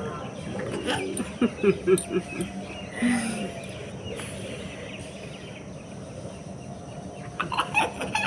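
Domestic fowl clucking in a series of short calls, with a second cluster of short calls near the end.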